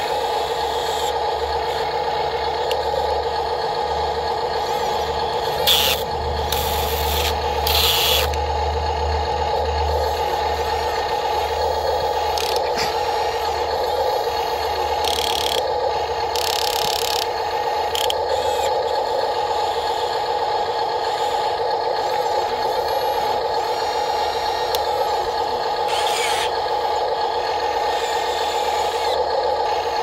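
Radio-controlled model excavators at work: a steady electric-motor whine, broken several times by short bursts of scraping and gravel rattling as a bucket digs into the dirt pile.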